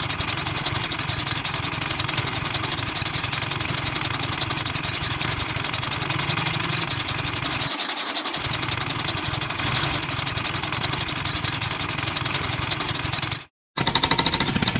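Small electric motor on a miniature model tractor running steadily, driving a belt-powered toy chaff cutter that chops grass fed into it; a fast, even mechanical buzzing rattle that cuts off suddenly near the end.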